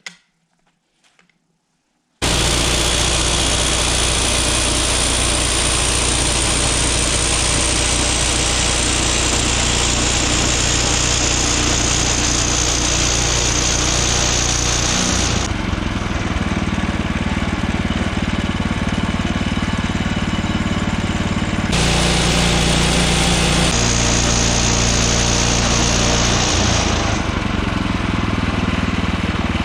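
Portable bandsaw sawmill running: its gasoline engine at steady high speed and the band blade cutting through a basswood log. It starts abruptly about two seconds in, and its pitch and tone shift a few times as the cut goes on.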